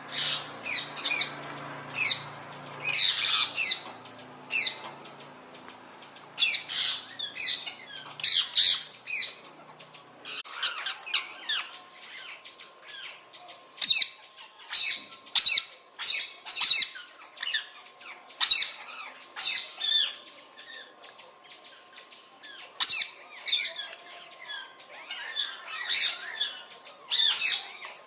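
Parrots squawking: many short, shrill calls in quick runs, with brief pauses between the runs.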